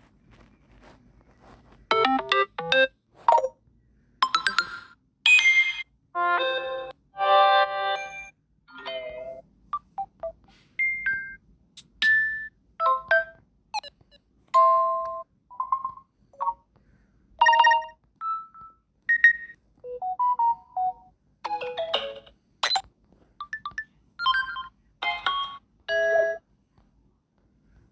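Samsung Galaxy A03 ringtones played one after another in short snippets, each lasting a fraction of a second to about two seconds, with brief pauses between the different melodies.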